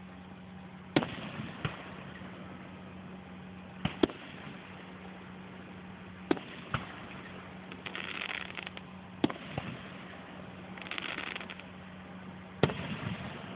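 Aerial firework shells bursting in the distance: sharp bangs every two to three seconds, several of them in close pairs, with two stretches of crackling, the first about eight seconds in and the second about eleven seconds in.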